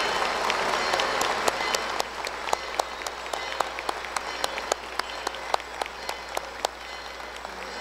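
Convention audience applauding, the ovation dying away: dense clapping for about two seconds, then thinning to scattered separate claps that grow sparse near the end.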